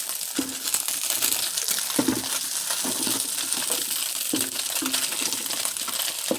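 Crab meat frying in butter in a pan with a steady sizzle, while a utensil clinks and scrapes against the pan now and then.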